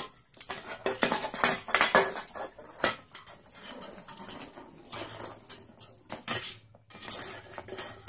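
Aluminium drink can clinking and rattling as a sun conure pushes and rolls it across a wooden floor with its beak: a quick run of sharp metallic knocks and clatters, with a brief lull about seven seconds in.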